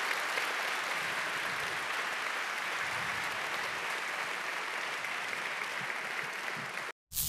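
Audience applauding steadily, cut off abruptly near the end.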